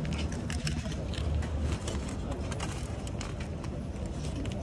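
Aluminium foil wrapping crinkling as it is peeled open by hand, in quick irregular crackles, over a low steady rumble.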